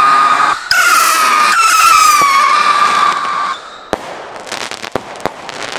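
Pyro Factory Scream Rockets, a volley of whistling fireworks rockets: several shrill whistles overlap, each dropping slightly in pitch as the rockets climb, and stop about three and a half seconds in. A sharp bang follows, then a scatter of cracks and pops as the rockets burst.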